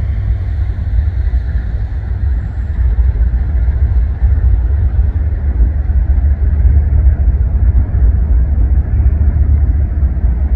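A string of CN GE diesel locomotives, ES44AC and ET44AC units running as one multi-engine move, rolling slowly past with a steady low rumble.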